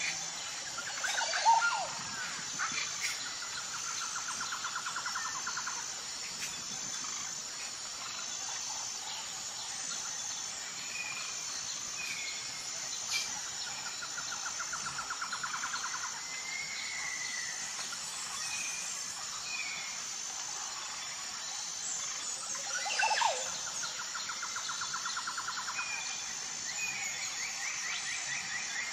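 Insects and birds: a steady high insect chirring with regular pulses and scattered short bird chirps. A rapid pulsed trill comes three times, about two seconds each. The loudest sounds are brief calls about a second and a half in and again about two-thirds of the way through.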